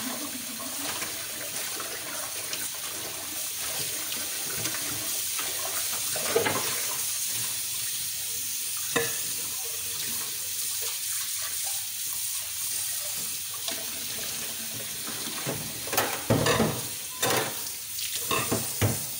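Water running steadily from a kitchen tap into the sink, with a couple of sharp knocks and a clatter of dishes near the end.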